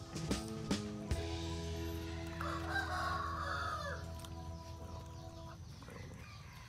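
A rooster crows once, for about a second and a half, starting about two and a half seconds in, over background music with held notes that stops about five and a half seconds in. A few sharp knocks come in the first second.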